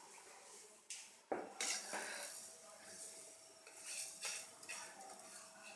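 A metal spoon clinking and knocking against a pan and spice containers while spices are added to the tempering, with one sharp knock about a second in and a few lighter clinks after.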